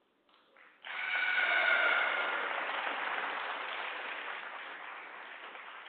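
Shouting and cheering in a sports hall, starting suddenly about a second in with a long held voice and fading away over several seconds.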